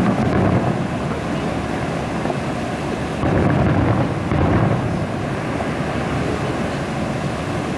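Distant aerial fireworks shells bursting, heard as low, rolling booms: one right at the start and a longer, louder run from about three to five seconds in, over a steady low rumble.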